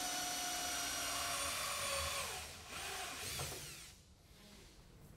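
Cordless drill with a step bit boring a 7/8-inch hole through the top of a plastic disconnect box: a steady whine for about two seconds, then it slows, gives a couple of short spins that rise and fall in pitch, and stops about four seconds in.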